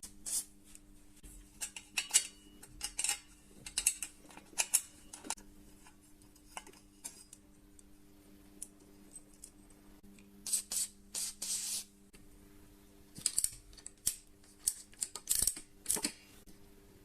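Irregular clicks, taps and light metallic clinks of hand tools working on old bicycle parts, with a couple of longer scraping passes about ten seconds in and a faint steady hum underneath.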